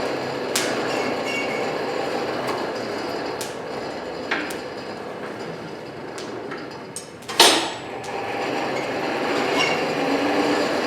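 Blacksmith's forge running steadily under its air blast, a continuous rushing noise, as a fluxed bundle of angle iron and rods soaks up to forge-welding heat. A few light metal clicks and one sharp clank about seven seconds in.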